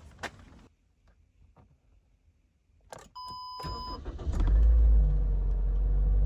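A few faint clicks, then a steady electronic beep from the vehicle for about a second, and the engine starts a little under four seconds in and settles into a loud, steady idle.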